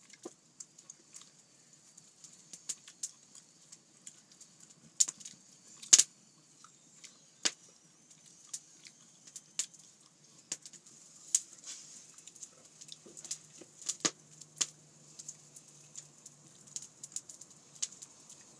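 Open wood fire crackling, with irregular sharp pops over a faint steady hiss; the loudest pop comes about six seconds in.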